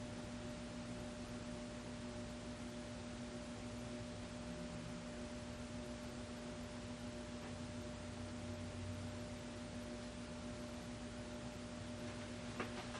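FASCO Parlour ceiling fan (model 938) running at a mid setting on its solid-state variable speed control: a steady motor hum of one or two held tones over an even hiss. This is the motor noise that these solid-state controls bring on as the speed is turned down, which the owner calls pretty standard on older FASCOs. A few faint clicks near the end.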